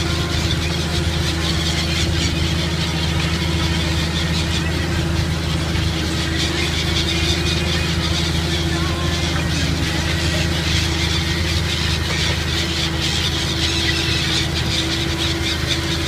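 SAME 100.6 tractor engine running steadily under ploughing load, with a high squealing noise over the steady drone.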